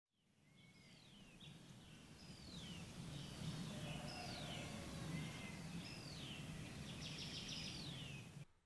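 Forest ambience fading in: a bird repeats a short, downward-sliding whistle about every second and a half over a low steady rumble. It cuts off abruptly near the end.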